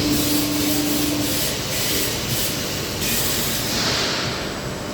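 CNC press brake machine running: a steady mechanical noise with a high hiss that pulses and then swells and fades near the end, and a short hum in the first second or so.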